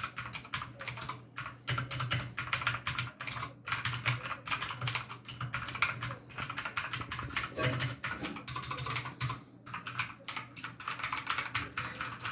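Typing on a Redragon K552 Kumara mechanical keyboard with Outemu Blue switches, a fast, continuous stream of clicky and loud key clicks. The typing breaks off briefly twice, about three and a half and nine and a half seconds in.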